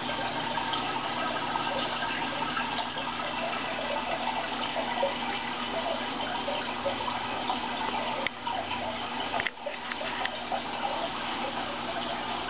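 Steady running and splashing water from a large aquarium's filtration, dipping briefly twice about two-thirds of the way in.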